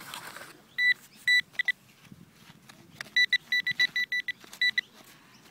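A metal detector beeping over an open dig hole: short high beeps all of the same pitch, a few single ones, then a quick run of about ten starting about three seconds in. This is the detector picking up the buried target still in the hole.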